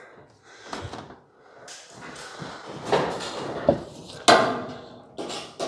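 Sheet-metal roof panel being shifted and pressed into place on the truck body: scraping and rubbing, with two sharp knocks about four seconds in.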